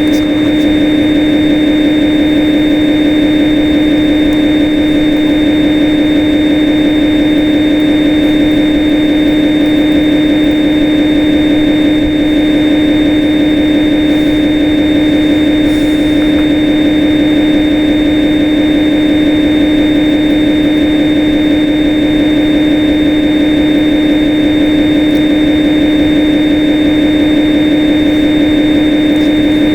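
Swansoft CNC simulator's lathe spindle sound, running steadily at 1000 rpm after a spindle-start command: a constant machine hum with a strong steady tone.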